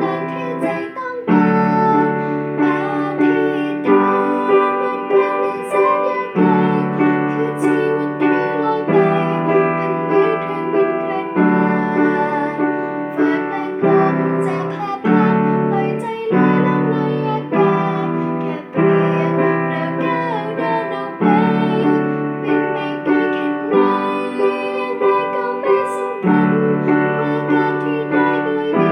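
Piano playing a slow pop ballad in chords changing every second or two, with a young woman singing the melody over it.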